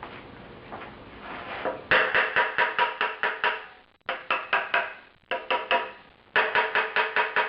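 Hammer blows on the front pulley of a 13B rotary engine. From about two seconds in come quick runs of ringing metal strikes, about four or five a second, with short pauses between runs. The pulley is stuck fast because it is riveted on.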